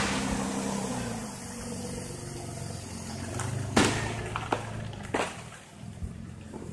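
Aerial firework shells bursting. The boom of one burst is fading at the start. A sharp, loud bang comes about four seconds in, then a few smaller cracks.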